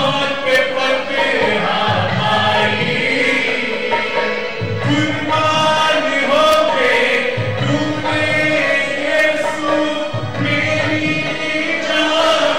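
Urdu Christian worship song, sung with instrumental accompaniment.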